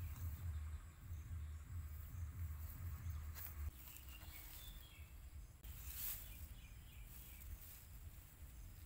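Faint outdoor ambience. Wind rumbles on the microphone for the first few seconds, then drops away, with a few soft clicks and rustles and faint high chirps.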